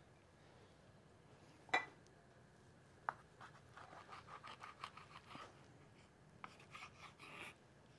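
Kitchen knife cutting a raw skin-on salmon fillet into chunks on a cutting board. There is a sharp knock about two seconds in, then a run of quick short cutting and scraping strokes against the board, and a few more near the end.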